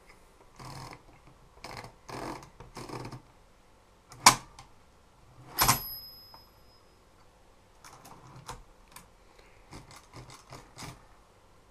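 Adler Tippa portable typewriter being worked. A few soft mechanical strokes come first, then two loud clacks, the second followed by a brief bell-like ring. Near the end comes a quick run of lighter keystrokes.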